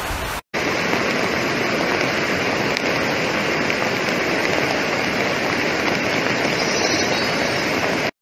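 Floodwater torrent rushing over a road and rocks: a loud, steady rush of water. It starts suddenly after a brief silent gap about half a second in and cuts off just before the end.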